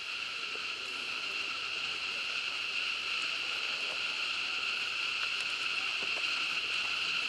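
Steady, unbroken high-pitched insect chorus, likely cicadas, drifting slowly louder, with a few faint ticks.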